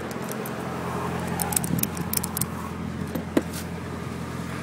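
Car engine idling with a steady low hum, under light metallic clicks and jangles from handling tools and wiring, with one sharp click about three and a half seconds in.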